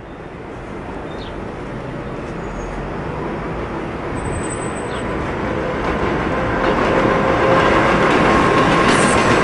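An approaching New York City IRT Redbird subway train on elevated track, its wheel and track noise growing steadily louder, with a faint steady whine in the second half.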